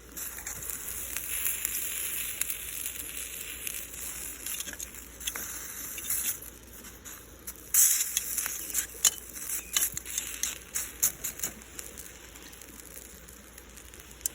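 Thick-cut bacon sizzling in a cast-iron skillet over a campfire: a steady hiss with sharp pops and crackles of spitting fat, busiest a little past halfway and thinning out near the end.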